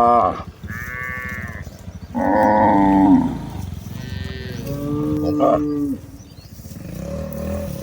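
Cattle mooing: several cows call one after another, some high-pitched and some deep, each moo lasting about a second, with the calls dying away about six seconds in.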